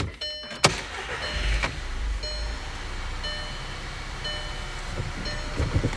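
2009 Volkswagen CC's 2.0-litre turbo four-cylinder started up, catching about a second and a half in and settling into a steady idle. The vacuum hose to the PCV valve is taped off, so the whistle and hunting idle caused by the valve's broken seal are gone.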